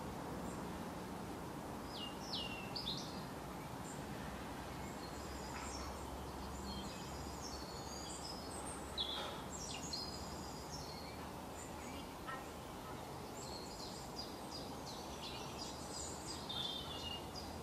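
Outdoor ambience of small birds chirping and trilling on and off: a few high chirps a couple of seconds in, a busier run of calls in the middle, and more near the end, over a steady low background hiss.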